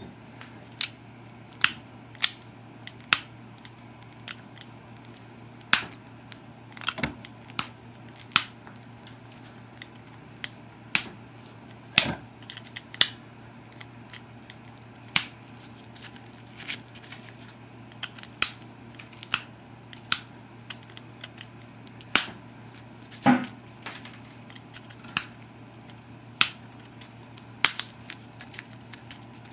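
Pressure flaking an obsidian biface: a string of sharp clicks and snaps as the flaker pops small flakes off the edge, roughly one a second at an uneven pace, some louder than others.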